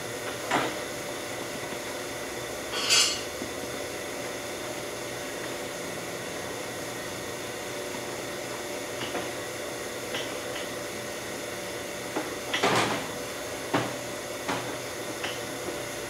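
Steady hum of the vacuum system drawing air to suck a heated thermoplastic blister down over a prosthetic socket cast. A short hiss of air comes about three seconds in, and a few knocks and rubbing sounds of gloved hands working the plastic come near the end.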